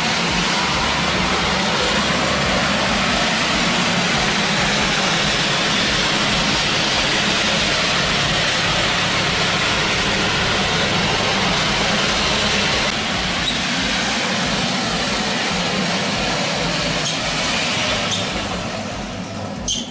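Clarke Boost 24 orbital floor scrubber running steadily, its pad scrubbing the floor with water only while the back motor runs for the second pass. The noise falls away over the last couple of seconds.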